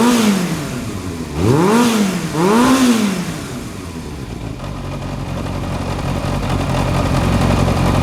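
Yamaha XJR400R's air-cooled inline-four running through a WRS aftermarket silencer. A rev is dropping away at the start, then comes two quick throttle blips about two seconds in, and the engine settles to a steady idle.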